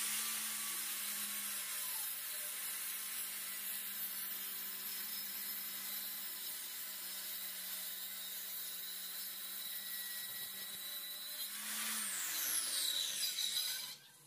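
Handheld DERA circular saw running and crosscutting a plywood board: a steady motor whine under the noise of the blade cutting. About two seconds before the end the whine falls in pitch as the motor winds down, and the sound then stops suddenly.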